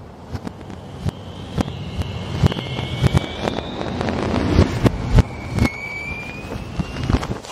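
Fireworks sound effects: a run of sharp bangs and crackles from bursting shells over a rushing wash, with two whistling rockets climbing in pitch, one about two seconds in and another near the end.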